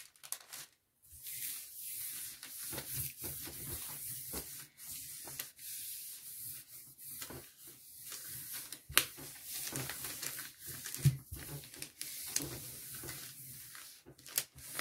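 Hand rubbing and pressing tracing paper down onto an inked gel printing plate, an irregular papery swishing, to lift the paint off the plate and pull the print. Two sharp clicks stand out, at about 9 and 11 seconds in.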